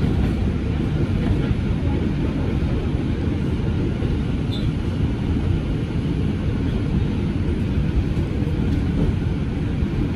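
2001 Bombardier R142 subway train running at speed, heard from inside a car as a steady low rumble of wheels on the rails.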